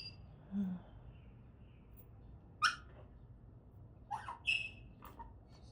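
A pet parrot giving a few short, separate squawks and chirps: one sharp call a little past halfway through, then two quick chirps about a second later.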